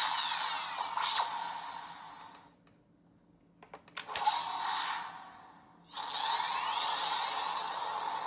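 Premium DX Vision Driver toy belt playing electronic transformation sound effects through its small, tinny speaker, in three stretches. The sound drops away around three seconds in, then a few sharp plastic clicks of the belt being worked set it going again.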